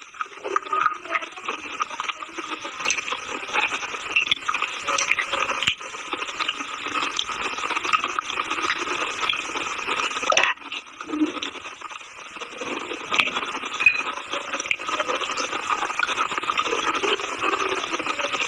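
Close-miked crunching and chewing of brittle, chalk-like material: a dense, continuous gritty crackle with a single sharper snap about ten seconds in.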